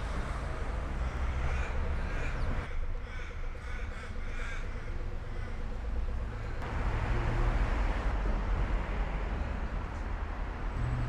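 A crow cawing in a quick run of short calls through the first half, over a steady low rumble of street traffic. A vehicle passes in the second half.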